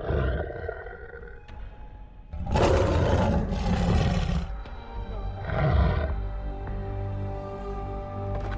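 A big cat's roar, one long roar of about two seconds a couple of seconds in and a shorter one about three seconds later, over a music bed that opens with a sudden hit and settles into held chords.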